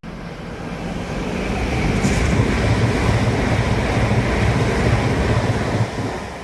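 A train passing close beneath the footbridge: a loud rushing noise that builds over the first two seconds and eases off near the end, with a regular low thumping under it, about two beats a second.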